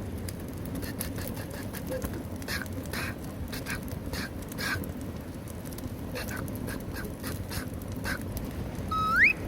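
Firewood fire crackling, with irregular sharp pops over a steady hiss, just after being lit with gel fire starter. Near the end a loud, short rising whistle sounds.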